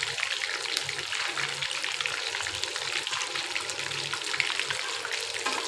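Hot oil sizzling and crackling steadily as battered fish deep-fry in a kadai.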